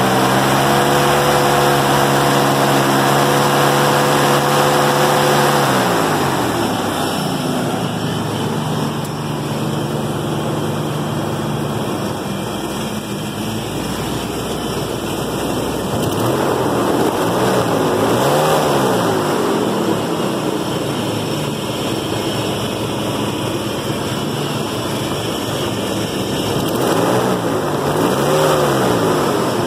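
1996 Ford Bronco's V8 engine with the hood open, held at raised revs for about six seconds, dropping back to idle, then revved up and back down twice near the middle and end. It makes a buzzing noise under acceleration, which the owner puts down to a fan clutch that needs replacing.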